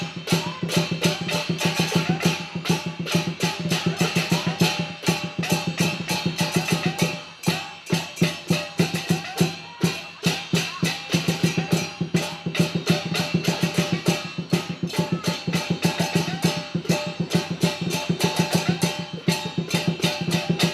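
Fast Chinese dragon-dance percussion music with rapid, driving strokes, several a second, and a brief lull about seven seconds in.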